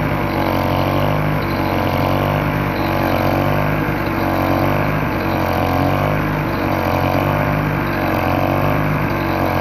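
Small 950-watt portable generator engine running at a steady speed, with a faint regular rise and fall in its sound.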